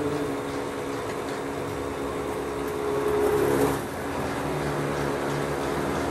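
Car engine and road noise heard from inside a moving car: a steady hum that swells briefly about three seconds in.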